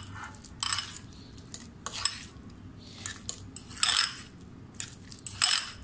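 Metal spoon stirring and scraping chopped boiled egg and mayonnaise in a glass bowl, clinking against the glass in about five separate strokes roughly a second apart.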